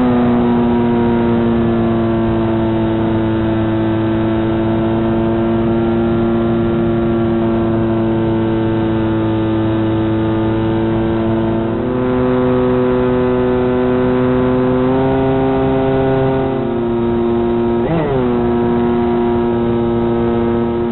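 Electric motor and propeller of a radio-controlled FPV plane, heard through its onboard camera: a steady motor tone with many overtones. Its pitch steps up about twelve seconds in and falls back around seventeen seconds as the motor speed changes. A quick dip and rise in pitch just after eighteen seconds marks a brief throttle cut.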